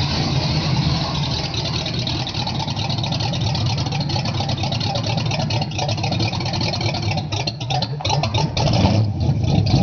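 1969 Boss 429 Mustang's 429 V8 running with a deep, steady rumble as the car rolls slowly away under light throttle, getting louder near the end.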